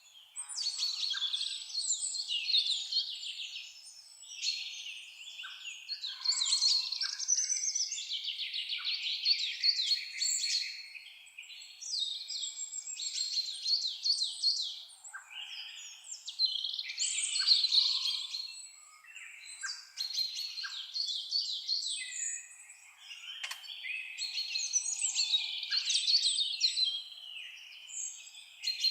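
Songbirds singing: fast, trilling phrases of two to three seconds each, repeating every few seconds with short pauses between them.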